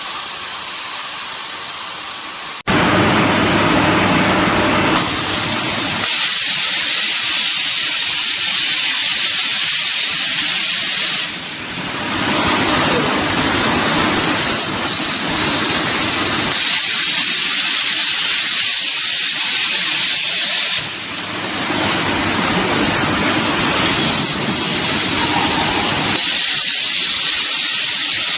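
CNC plasma torch cutting sheet metal: a loud, steady hiss, briefly dropping about 11 and 21 seconds in.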